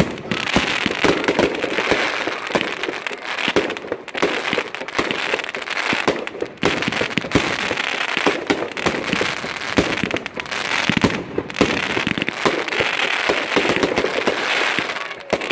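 Category 2 consumer module fireworks firing without pause: a dense run of launch thumps and aerial bursts under continuous crackling.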